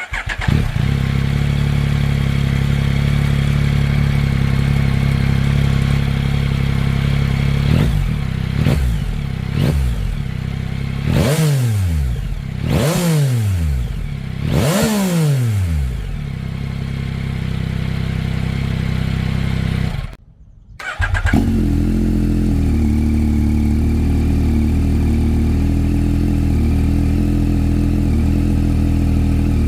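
A 2021 Yamaha MT-09's three-cylinder engine idling through a Black Widow full exhaust system, recorded on a phone. Around a third of the way in it is revved in five quick throttle blips, each rising and falling in pitch, the last three the biggest, then settles back to idle. After a short cut the bike idles again with a noticeably different, steadier note.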